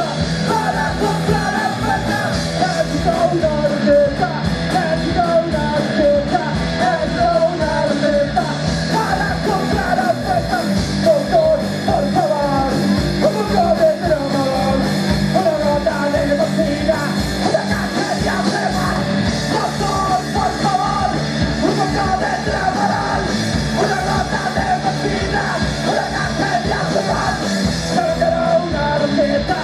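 Live punk rock band playing: shouted, sung vocals over electric guitar, bass guitar and a steady drum beat.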